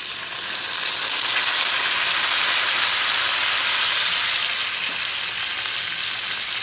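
Canned black beans tipped into a skillet of hot bacon fat, setting off a loud sizzle that swells in the first second and slowly dies down.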